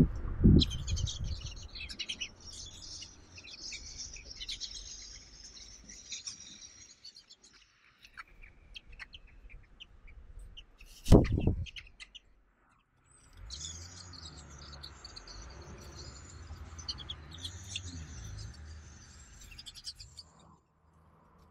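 Eurasian jay nestlings begging at the nest with rapid, scratchy, high-pitched calls in two long spells while the adult jay feeds them. A few loud thumps come at the start and about eleven seconds in.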